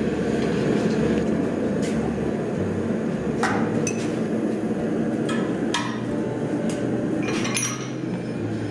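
A gas forge's burner running with a steady rush, with a handful of sharp metallic clinks of blacksmithing tools (tongs and hammer) against steel, a few ringing briefly.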